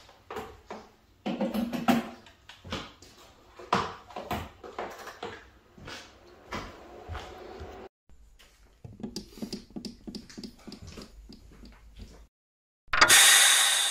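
Scattered clicks and knocks of someone handling things at a kitchen counter, broken by abrupt cuts. Near the end comes a loud, hissing whoosh, a transition sound effect.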